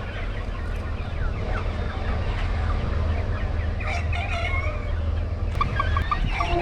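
A flock of chickens clucking and calling over one another, over a steady low hum. A run of four short high pips comes near the end.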